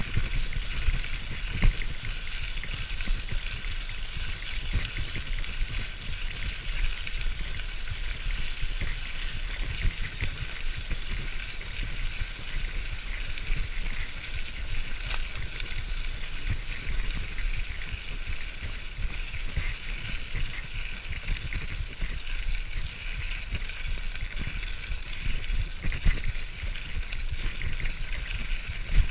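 Bicycle ride noise heard through a sealed GoPro Hero2 housing: a muffled low rumble with frequent irregular knocks as the tyres run over the bumpy, leaf-covered path, under a steady hiss.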